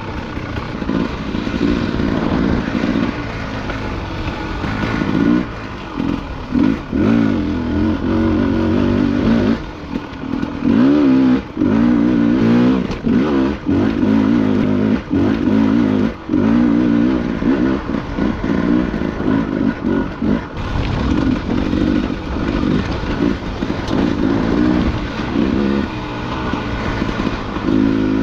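Dirt bike engine running under constant throttle changes, its pitch rising and falling as it revs up and eases off, with frequent short drops where the throttle is rolled off. Short knocks and clatter come through as the bike rides over rough ground.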